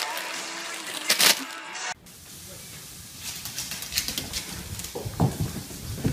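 Plastic snack bags crinkling as they are dropped onto a small dog, with a sharp rustle about a second in. After an abrupt change, a quieter room hiss follows, with a few short animal sounds near the end.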